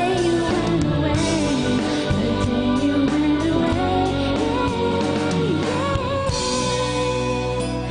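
Background music playing continuously.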